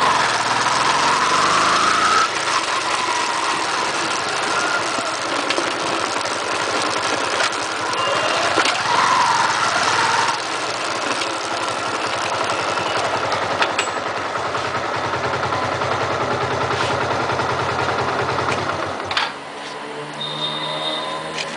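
Yamaha FZ16's single-cylinder engine running at highway speed, mixed with steady wind and road noise. The noise drops sharply near the end.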